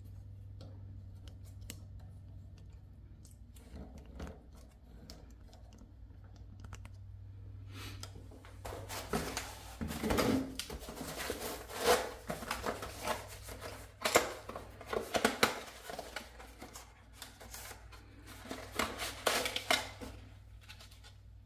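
Unboxing handling noise: packaging and small plastic parts being picked up, rustled and set down in a foam tray, with many sharp clicks and rustles from about eight seconds in. A steady low hum runs underneath.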